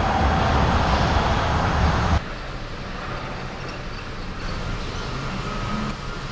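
Train passing close by with a loud, steady rumble and rail noise, which cuts off abruptly about two seconds in to a much quieter, steady rail-side rumble.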